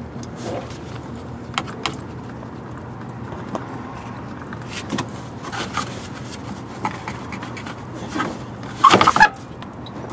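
Hand tools working on the transmission drain plug under a car: a wrench bar is fitted and worked on the plug, giving scattered light metal clicks, then a louder clatter about nine seconds in.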